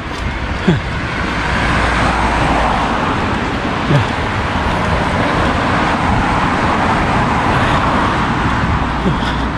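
Road traffic passing: car tyre and engine noise swelling and fading as vehicles go by, over a steady low rumble. Two brief sharp sounds come about a second and four seconds in.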